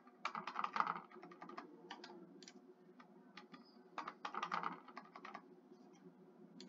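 Computer keyboard typing: two quick runs of keystrokes, each about a second and a half long, entering figures, with a few single key taps between them.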